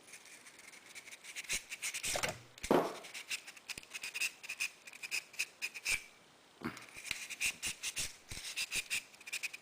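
A bristle brush scrubbed back and forth through a Ruger SR9 pistol barrel: quick scratchy strokes in runs, with a short pause about six seconds in.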